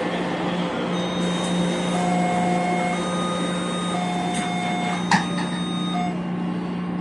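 Cabin noise of a Taipei Metro train running: a steady low hum and rumble. In the middle, a few steady whining tones start and stop, and there is one sharp click about five seconds in.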